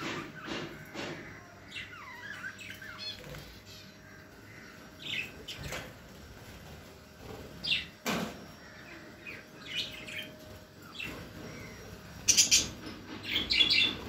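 Caged budgies and cockatiels chirping on and off, with louder, sharper squawks near the end. A single sharp knock sounds about eight seconds in.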